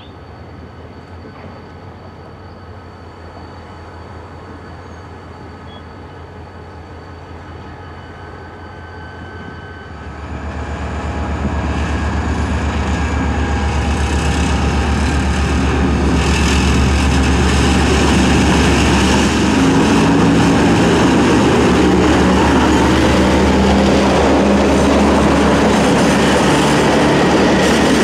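Diesel-electric freight locomotive approaching with its engine running. It grows much louder about ten seconds in, then the locomotive and loaded container wagons roll past close by, wheels clattering over the rails.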